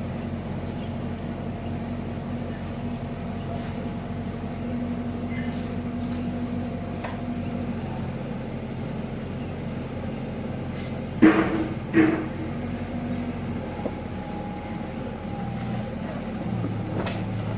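Kubota U50 mini excavator's diesel engine running steadily, its note shifting a little near the end. Two loud metallic knocks come about eleven and twelve seconds in.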